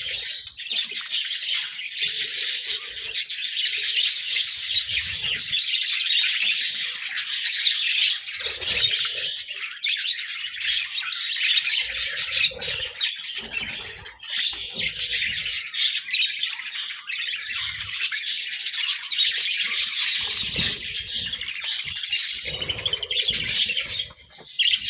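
A group of budgerigars chirping and chattering continuously in overlapping high-pitched calls.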